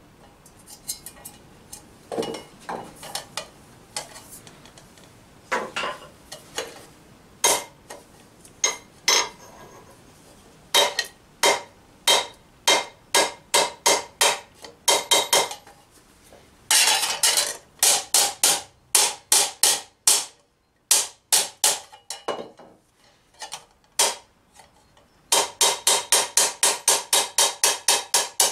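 Small hammer striking a tube of 16-gauge sheet steel held over an anvil horn, giving sharp ringing metallic taps. The blows are scattered and irregular at first, then come in short runs, and near the end settle into a fast even run of about five blows a second.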